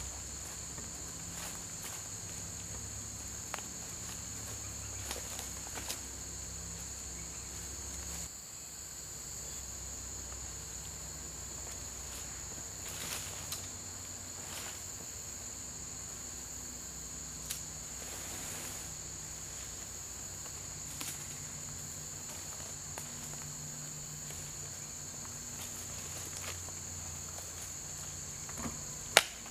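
Steady, high-pitched chorus of insects, with occasional clicks and rustles of bark slabs being handled and laid on a shelter roof; a sharp knock near the end is the loudest sound.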